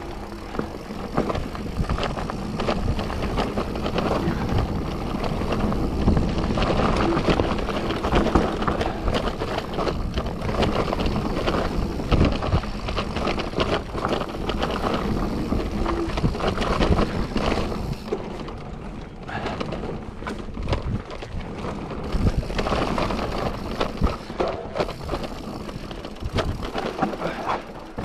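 Mountain bike riding a wet trail: tyres rolling over rough ground, with a constant clatter of rattles and knocks from the bike over bumps, easing briefly about two-thirds through.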